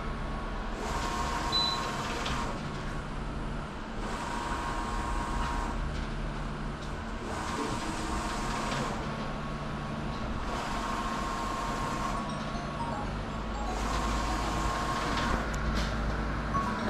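Large-format inkjet printer running, its print-head carriage sweeping back and forth across the banner: a hiss and whir that comes and goes in a regular cycle of about three seconds over a steady machine hum.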